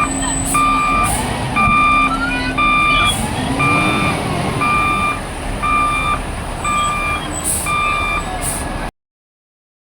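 Heavy vehicle's reversing alarm beeping steadily, about one beep a second, over a diesel engine's running rumble. Everything cuts off abruptly near the end.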